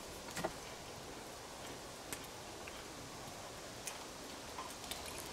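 A few faint, scattered clicks and taps of objects being handled on a wooden table, over quiet outdoor background; the strongest comes about half a second in.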